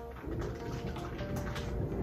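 Thunder after a lightning flash, rumbling low and growing louder toward the end, under background music.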